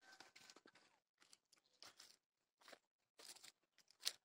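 Faint, irregular crunching and rustling of dry straw and stubble underfoot, with a sharper crunch near the end.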